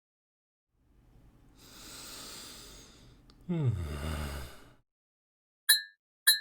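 Edited sound effects: a soft breathy swell, then a voiced, sigh-like exhale falling in pitch, then two short high beeps near the end.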